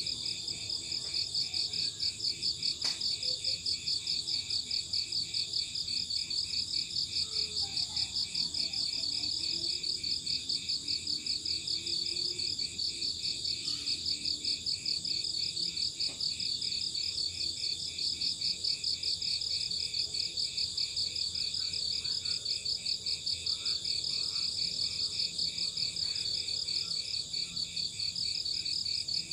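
Crickets chirping continuously in a fast, even rhythm of high chirps.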